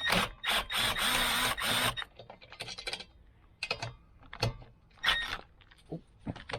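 Cordless drill, not an impact driver, spinning off small nuts on a mower's carburetor linkage: a steady whine for about two seconds, then clicks and handling noises of small metal parts, and a short second run of the drill about five seconds in.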